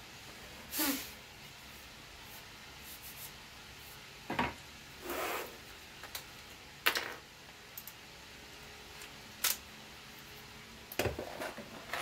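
Workbench handling sounds: a handful of short knocks and scrapes a few seconds apart as a rail is laid across lumber on the bench and a cordless drill is set down.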